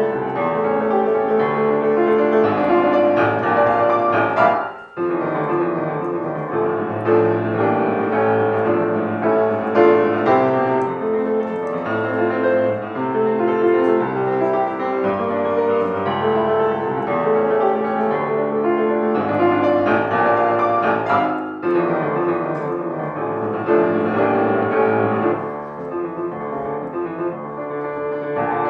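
Piano music: a barcarolle played in a flowing stream of notes over a bass line, with a brief break about five seconds in.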